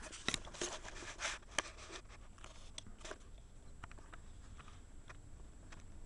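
Camera handling noise: a quick run of small clicks and rustling in the first second and a half as the camera is moved, then a few faint scattered ticks over a low steady hum.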